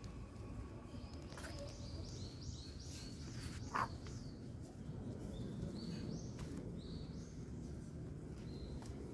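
A small bird chirping in runs of short rising notes, over a steady low outdoor background rumble. A brief, louder single sound stands out a little before the middle.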